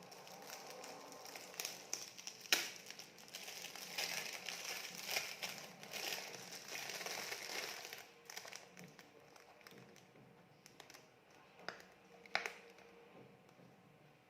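Gift wrapping crinkling and rustling as a package is handled and opened, with scattered sharp clicks. The rustling dies down about eight seconds in, leaving a few isolated clicks.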